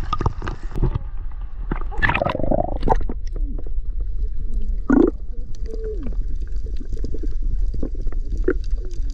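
Muffled underwater sound of a camera going under the sea surface: a steady low rumble of water with clicks and gurgling bubbles. The gurgles are louder about two seconds in and again about five seconds in.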